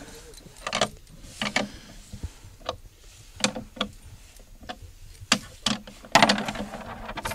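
Irregular sharp metallic clicks and knocks of a bolt, washer and nut being handled and fitted through a wooden crossbar, with a quick cluster of clicks near the end.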